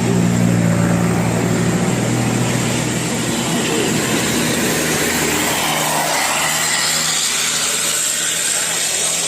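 Bus engine running close by with a steady low drone that fades after about three seconds, giving way to a wide, even rushing noise of the passing vehicle. No horn is sounded.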